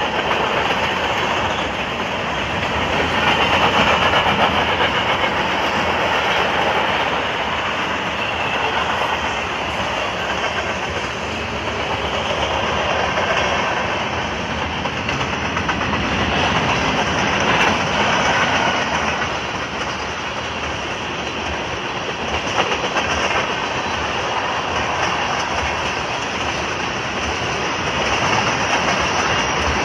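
A train's cars rolling steadily past, their wheels clacking over the rail joints under a continuous rumble.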